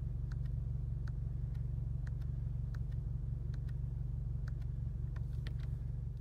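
VW Golf R's APR Stage 2-tuned 2.0-litre turbocharged four-cylinder idling, heard from inside the cabin as a steady low drone. Light irregular clicks of the steering-wheel buttons scrolling the trip computer sound over it. It fades out at the very end.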